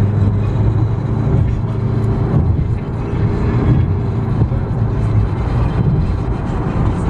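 Steady engine and road drone of a moving car, heard from inside the cabin.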